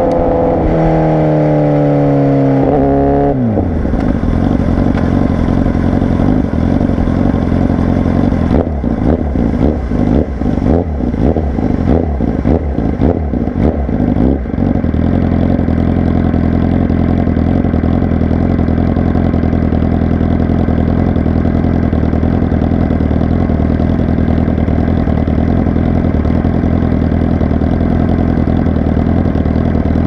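2017 Honda CBR1000RR SP1 inline-four through a Racefit Growler X exhaust, revving up under acceleration until the throttle shuts about three seconds in. The exhaust then pops and crackles irregularly as the bike slows, and settles into a steady idle for the second half.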